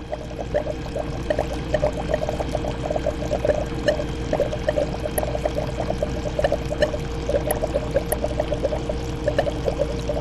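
Aquarium water bubbling and trickling in a continuous run of small bubbly pops, over a steady humming tone.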